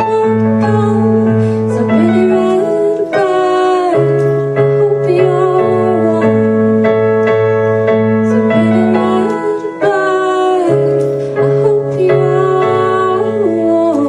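A woman singing over held keyboard chords that change every few seconds.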